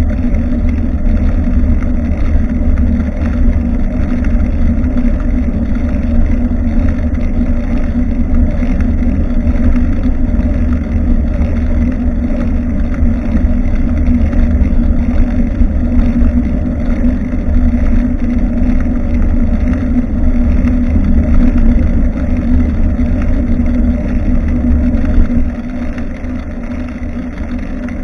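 Steady low rumble of wind and road vibration on the microphone of a rear-facing action camera mounted on a moving bicycle, easing off a little near the end.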